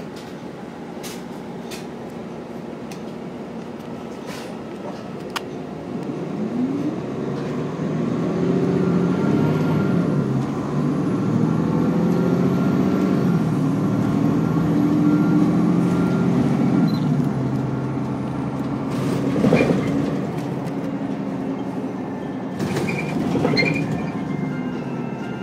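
Cabin sound of a Nova Bus LFS diesel transit bus with a Cummins L9 engine and Allison six-speed automatic. It runs quietly for the first few seconds, then the engine note grows louder from about six seconds in and rises in pitch in steps as the bus accelerates through its gears. Two short clatters come near the end.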